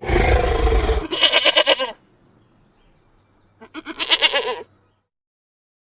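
A loud, low roar for about a second, then two short quavering bleats, typical of a goat, the second about two seconds after the first.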